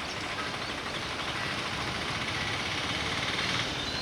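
Steady mechanical hum of a WAP-7 electric locomotive standing before departure, growing slightly louder, with a faint high whine for about two seconds in the middle.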